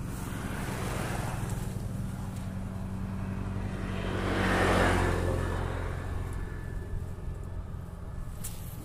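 A motor vehicle's engine running, growing louder to a peak about halfway through and then fading, as when it passes by.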